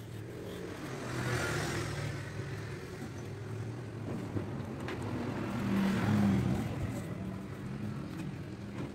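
Motor vehicles passing by: two swells of engine and road noise that build and fade, about a second and a half in and again around six seconds, over a steady low hum.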